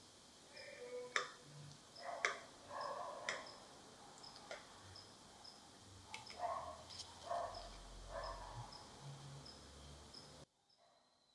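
A knife makes several sharp clicks and scrapes against a ceramic plate as a flan is cut and a slice lifted. A wind-up kitchen timer ticks steadily behind it. The sound cuts off abruptly near the end.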